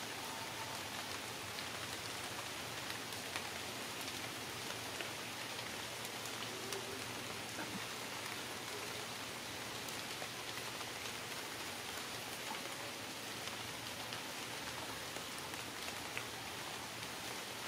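Steady rain falling in forest: an even hiss with scattered faint drip ticks.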